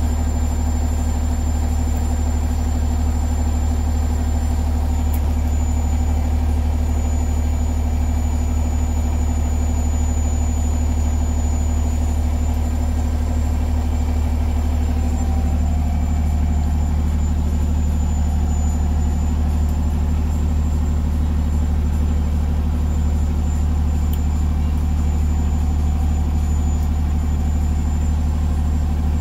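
Fire truck's diesel engine idling steadily at about 750 rpm with the transmission in neutral; the low hum's tone shifts slightly about halfway through.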